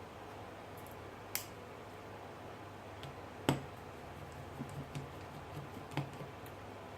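A few sharp clicks and light taps from small repair tools and phone parts being handled. The loudest click comes about halfway through, with softer taps near the end.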